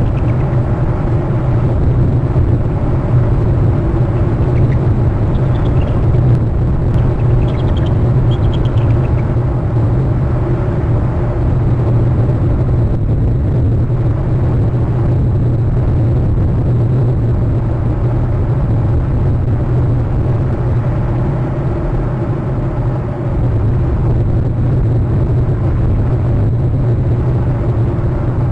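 A steady, loud low rumble and hum from the outdoor nest-cam's audio. About five to nine seconds in, faint high trills from bald eagles can be heard over it.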